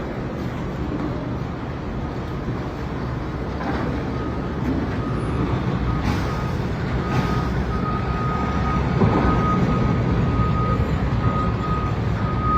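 A heavy machine's engine running steadily with its reversing alarm beeping over and over, the beeps louder in the second half.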